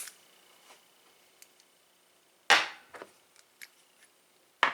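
Metal padlocks clacking down onto a kitchen counter: one sharp clack about two and a half seconds in, a few light clicks after it, and another sharp clack near the end.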